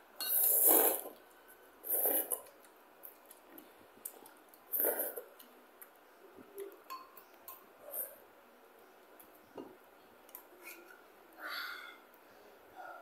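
Slurping of instant curry noodles, four main slurps with the loudest about half a second in, and small clicks of spoons and chopsticks against bowls between them.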